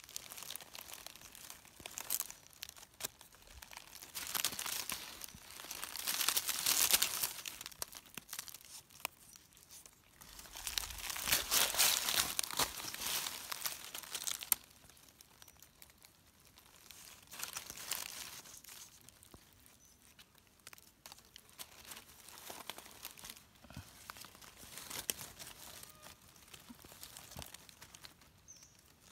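Dry fallen leaves crackling and rustling in uneven bursts as hands and a knife dig mushrooms out of the leaf litter on the forest floor. The longest and loudest burst falls a little before the middle, with quieter scraping and rustling between bursts.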